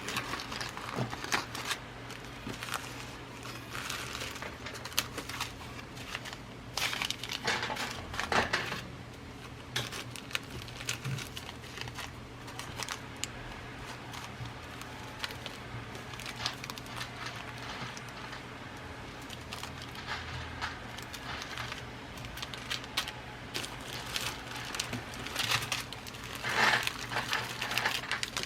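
Irregular rustling and crinkling as a collection of glass seed beads and their packaging is rummaged through, with small clicks. It is busiest about eight seconds in and again near the end.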